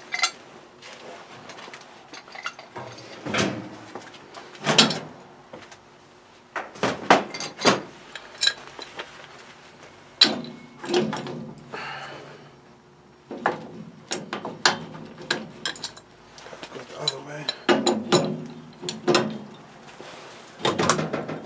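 Metal clanks, clinks and knocks from wrenches and old steel pipe fittings as a boiler's piping is unscrewed and taken apart, coming in irregular bunches with a few longer low groaning stretches.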